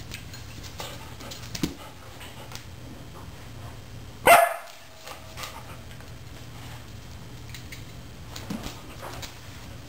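A Border Collie gives a single short, loud bark about four seconds in.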